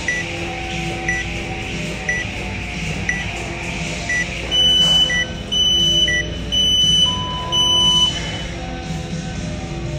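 Workout interval timer counting down: short high beeps about once a second, then four loud, longer beeps about a second apart that signal the start of the workout. Background music runs throughout.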